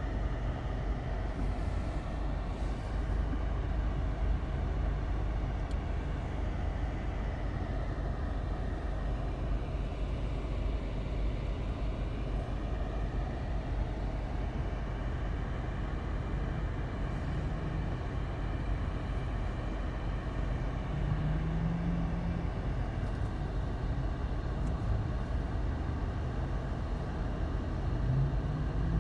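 Steady low rumble of vehicles and road traffic, with a few brief low engine hums from passing vehicles in the second half.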